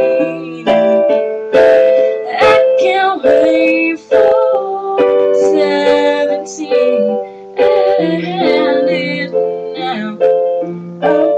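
Portable electronic keyboard played with both hands in a piano-like voice: chords and a melody, with new chords struck about once a second.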